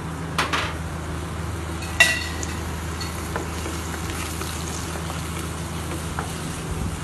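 Chopped vegetables sizzling as they sauté in a frying pan, stirred with a wooden spatula. A few sharp knocks of the spatula against the pan stand out, the loudest about two seconds in.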